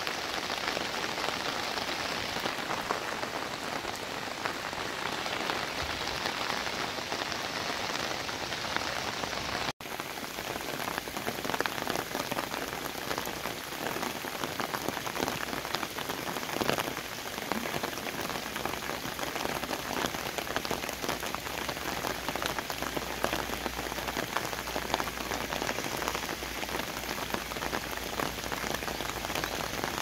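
Steady rainy-season rain falling, in the later part onto the standing water of a flooded rice paddy. The sound breaks off for an instant about ten seconds in.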